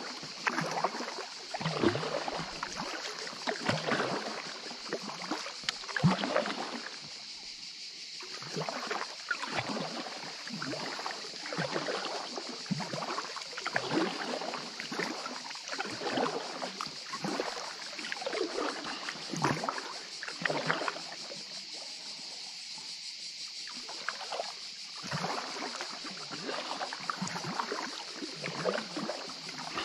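Kayak paddle strokes pulling through calm water beside an inflatable kayak, a soft splash and trickle every second or so, pausing briefly twice, about a quarter of the way in and again about two-thirds through. A steady hiss runs underneath.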